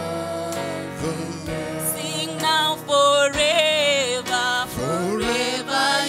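Women singing a slow gospel worship song over sustained instrumental backing, the voices holding and sliding between long notes.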